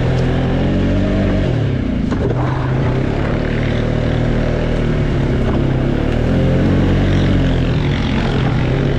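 ATV engine running hard, its pitch dropping and then climbing again as the throttle is eased off and reopened, about two seconds in and again later on.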